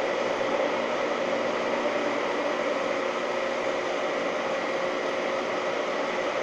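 Holzmann ED 1000 metal lathe running steadily at about 770 rpm while turning a long steel bar: a continuous even hum with a steady whine, unchanging throughout.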